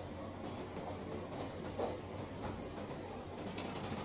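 Light scraping and rustling with scattered small clicks and a soft knock near the middle, over a steady low hum.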